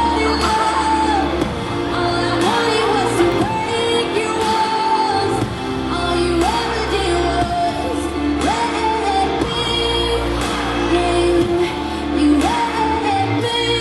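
Pop song with a sung vocal line over a steady bass and beat.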